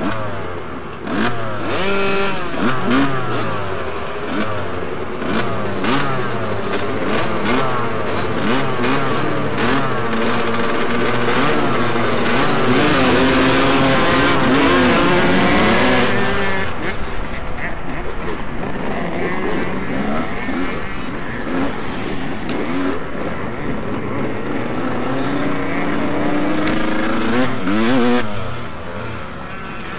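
Motocross bikes racing, several engines at once revving up through the gears over and over. The sound builds to its loudest around the middle, then eases.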